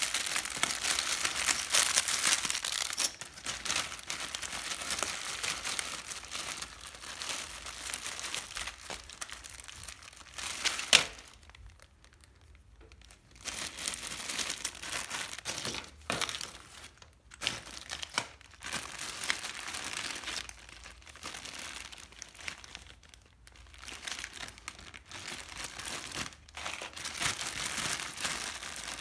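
Plastic zip-lock bags crinkling as they are handled and rummaged through, in irregular spells. One sharp snap stands out about eleven seconds in, followed by a short quiet pause.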